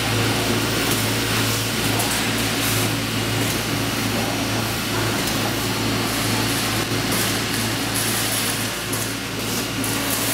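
Strippit Fabri Center 1000SX CNC turret punch press running, a steady low hum under a rapid patter of punch strokes as the sheet is moved and punched.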